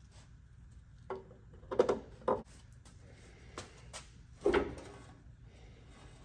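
Sheet-metal bending brake being worked to bend an aluminum panel 90 degrees: a string of about six separate clunks and metallic knocks, some ringing briefly, the loudest about two seconds in.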